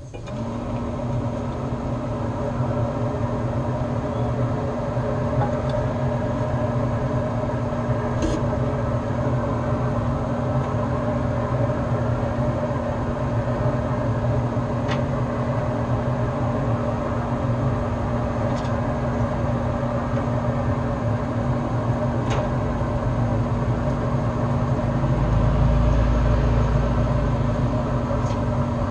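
A steady mechanical hum over a low drone, starting suddenly and holding one even pitch, with a few faint clicks. The low drone swells briefly near the end.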